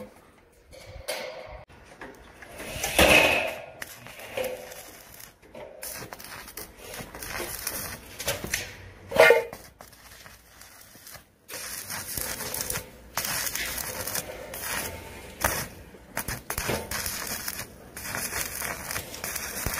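Stick (arc) welder's electrode crackling and sizzling as it welds steel roof panels, in runs with brief breaks between them. Two louder, shorter sounds stand out about three and nine seconds in.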